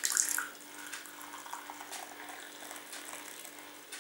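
A thin stream of hot chicory drink poured into a ceramic cup. It splashes loudest in the first half second, then runs on as a steady trickle while the cup fills.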